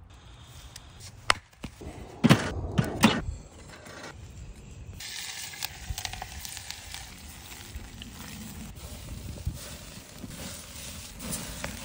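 A sharp click, then a few loud metal clanks and rattles as a rotisserie spit is set onto a kettle grill. From about five seconds in, a steady hiss with small crackles follows: butter sizzling as it melts in a cast-iron pot on hot coals.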